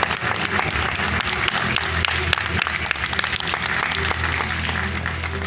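Audience applauding in an auditorium: many hands clapping densely, thinning toward the end, with a low steady hum underneath.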